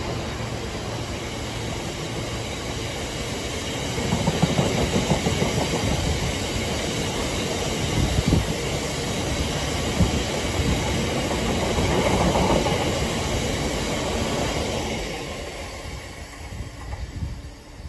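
Loaded aggregate wagons of a freight train rolling past at speed: a steady rumble with wheels clattering over the rails and a few sharp thumps. It fades away near the end as the last wagons pass.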